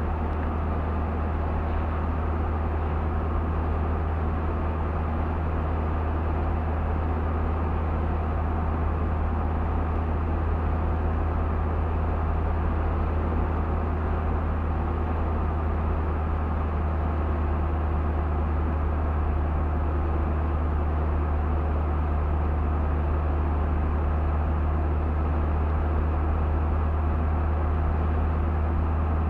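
Car driving at a steady pace: a constant low drone of engine and road noise with an even tyre hiss over it.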